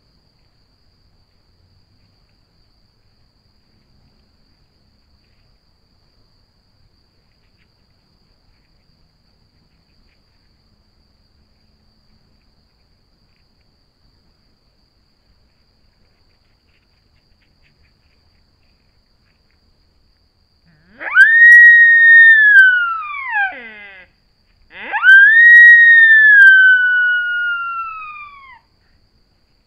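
Two long, high whistling rut calls of a sika deer stag, starting about 21 seconds in, each rising sharply, holding, then sliding slowly down, a second apart. Before them there are only faint ticks.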